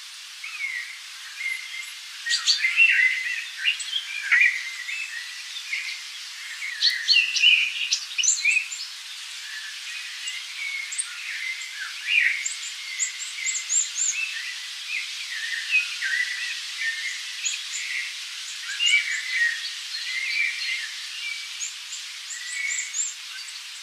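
Many small birds chirping and calling over one another, a busy stream of short high notes with no pause, over a faint steady hiss.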